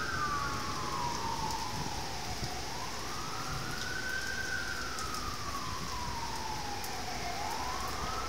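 A siren wailing in slow cycles: each rise takes about a second and a half and each fall about three. Under it runs the steady hiss of heavy storm rain.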